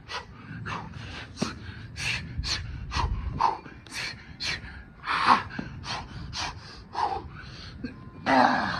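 A man breathing hard from the exertion of Navy SEAL burpees: short, sharp gasps and puffed breaths, about two a second, with a longer, louder exhale near the end.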